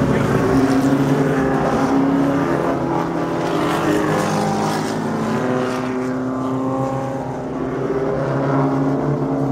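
Several vintage race car engines running hard as the cars come through a corner one after another. About halfway through, one engine note drops in pitch as a car goes by.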